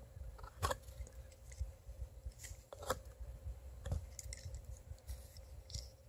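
Plastic fidget cube being fiddled with: a handful of light, sharp clicks at uneven intervals as its buttons and switch are worked.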